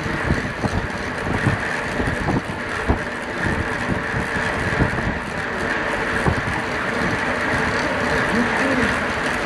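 Wind rushing and buffeting over the microphone of a camera on a track bike rolling at about 25 mph, over a steady rolling hiss from the bike on the track.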